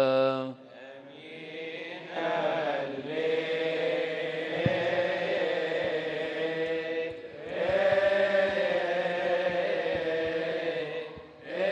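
Coptic Orthodox deacons' choir chanting a hymn together in male voices, with a short break about seven seconds in. A single voice ends a held, wavering note about half a second in, and the choir comes in about two seconds in.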